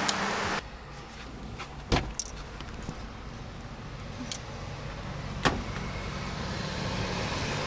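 Inside a moving car: a steady low engine and road hum, with a few sharp clicks and knocks.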